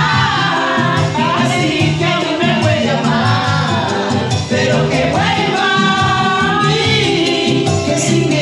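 Karaoke: a woman sings into a microphone over loud Latin backing music played through the PA.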